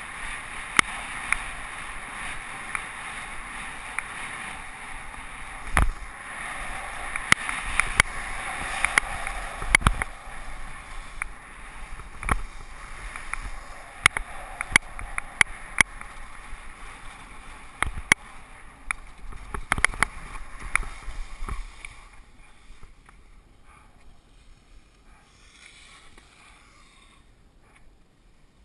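Skis hissing and scraping over soft spring snow on a downhill run, with many sharp clicks and knocks along the way; the hiss stops about three-quarters of the way through, leaving only faint noise.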